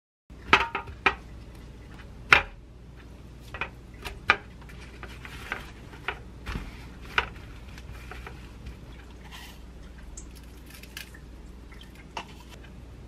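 A stainless-steel tray clinking and clicking as raw beef steaks are handled and blotted with paper towels, with a soft rustle of paper. The sharp clinks come in a run over the first seven seconds, then thin out to a few light taps.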